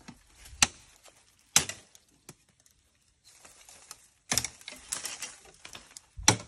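A knife chopping the side branches off bamboo stems: sharp woody knocks, one under a second in and another about a second later, then a quick run of strokes a little past four seconds and one more near the end.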